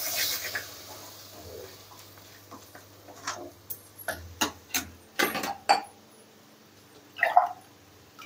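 Wooden spatula stirring mutton pieces in masala in an aluminium kadai, scraping and knocking against the pan in scattered strokes, with a light sizzle at first. A brief louder sound near the end.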